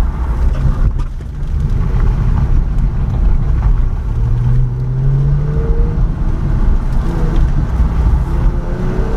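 Car engine pulling hard under acceleration, heard from inside the cabin, with a steady low rumble and an engine note that climbs about four seconds in before easing off.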